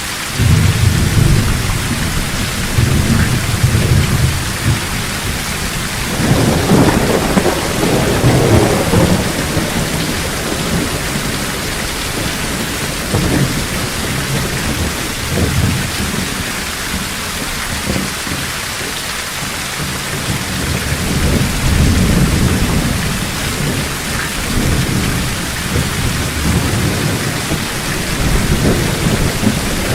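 Thunderstorm: steady heavy rain with low rolls of thunder rumbling again and again, every few seconds.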